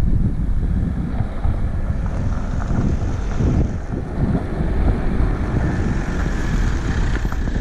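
Wind buffeting the camera microphone in a steady low rumble, over a Toyota car pulling slowly out of a gravel driveway.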